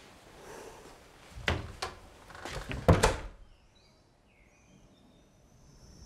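A door being shut: a few clicks and knocks from the handle and latch, ending in a firmer thud about three seconds in, then near silence.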